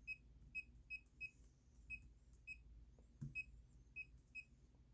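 A laser projection keyboard beeping at each key press as someone types on it with the projection switched off. About ten short, identical, fairly high beeps come at uneven intervals, with a soft knock about three seconds in.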